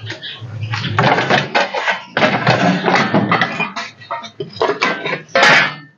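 Metal pots, dishes and utensils clattering and clinking in a quick, irregular run of knocks, with the loudest clang near the end.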